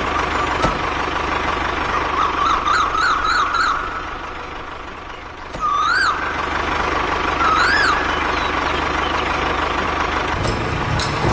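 Electronic siren-like toy sound: a quick warbling run of short pitch sweeps, then two single rising-and-falling whoops about two seconds apart, over a steady electric hum.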